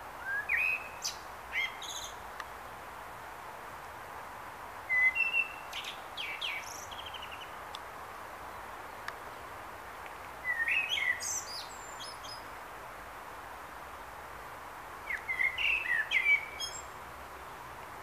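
Common blackbird (Turdus merula) singing: four phrases a few seconds apart, each a low fluting warble that breaks into a high, squeaky twitter, over a steady faint hiss.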